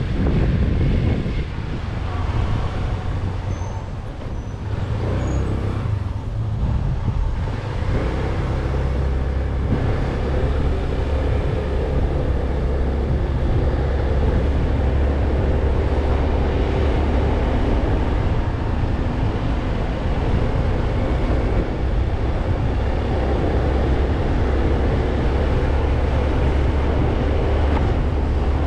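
Motolux MTX 125 scooter's engine running while being ridden, heard from the handlebars along with road noise. The engine note is quieter and uneven for the first several seconds, then holds a steady drone from about eight seconds in.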